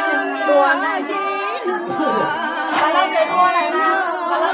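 Unaccompanied voices singing a Mường folk song, with talk overlapping it.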